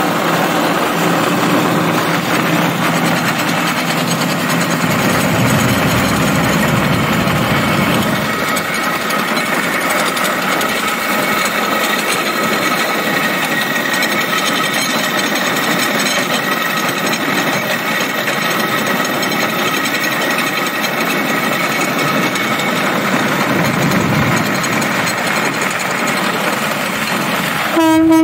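Motorized rail cart running steadily along the track, its engine and wheels making a continuous loud clatter. A horn starts sounding right at the end.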